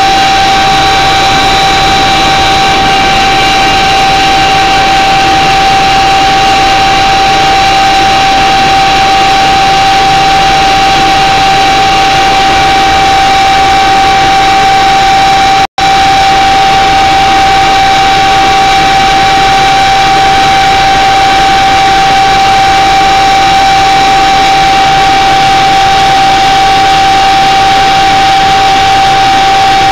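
Aircraft engines heard from inside the cabin while taxiing: a loud, steady drone with a strong unwavering high whine over it. The sound drops out for an instant about halfway through.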